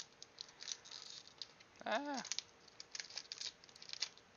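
Foil trading card booster pack crinkling in the hands as it is opened, in many short crackly rustles. A brief hummed voice sound, rising then falling, about two seconds in.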